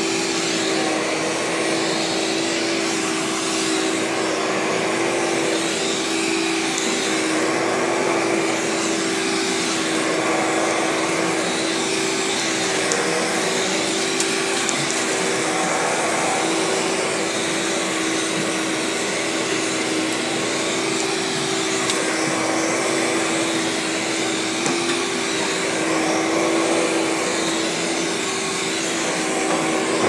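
Carpet Pro commercial upright vacuum cleaner running steadily as it is pushed over carpet, a constant motor hum with airflow noise.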